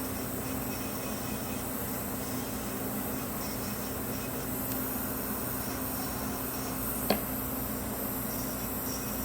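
Electric nail file (e-file) running steadily with a moon bit turning in reverse, cleaning around the cuticle, over the steady whoosh of a nail dust vent. A single sharp click about seven seconds in.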